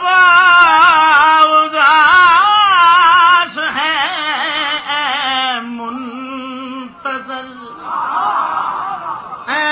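A man's voice reciting in a drawn-out, wavering, sung manner through a microphone, holding long notes. It is loud for the first three and a half seconds, then drops lower in pitch and quieter.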